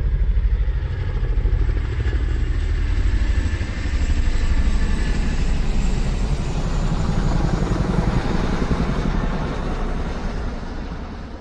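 Loud low vehicle rumble with a fast, even pulse, swelling in the middle and fading away near the end as it passes.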